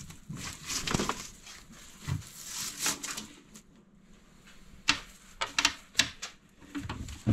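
A wooden cabinet's locked doors being tugged and worked at the latch: a series of sharp clicks and light rattles, coming thickest in the last couple of seconds, with a few short rustles of plastic wrap.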